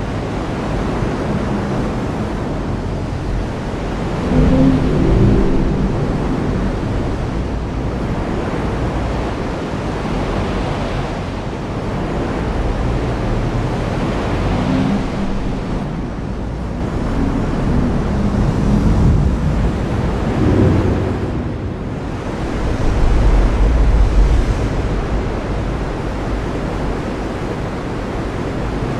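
Heavy rain falling steadily in a dense hiss, with several low rumbling swells rising above it, the loudest about four seconds in and again near the end.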